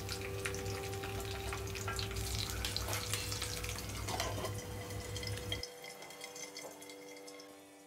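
Ivy gourd and French beans deep-frying in hot oil in a kadhai: a steady crackling sizzle that drops and fades quieter over the last couple of seconds.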